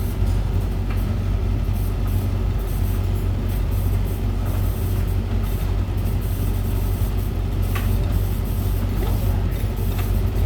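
Laundry machine running with a steady low hum and an even whirring noise.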